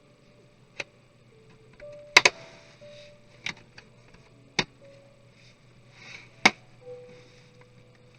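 Scattered sharp clicks and taps, about six in all, the loudest a close double click a couple of seconds in: laptop parts and tools being handled during disassembly of an Acer Aspire 3 laptop. Faint background music with held notes runs under them.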